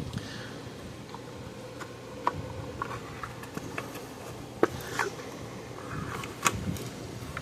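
Irregular small clicks and knocks of circuit boards and plastic case parts being handled and shifted into place inside an electric fence charger, the sharpest knocks about four and a half and six and a half seconds in.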